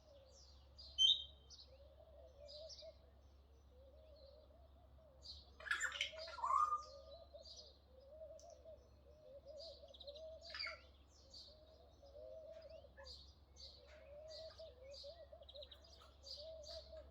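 Morning bird chorus: doves cooing over and over in low, rolling phrases, under a steady scatter of small birds' high chirps and tweets. A louder, harsher call stands out about six seconds in, and a shorter one about ten seconds in.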